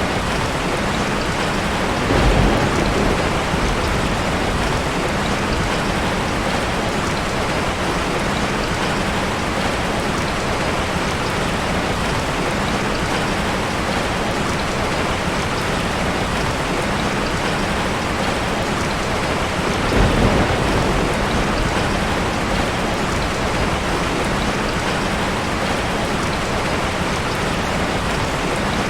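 Steady rain falling, with two short low rumbles of thunder: one a couple of seconds in and one about two-thirds of the way through.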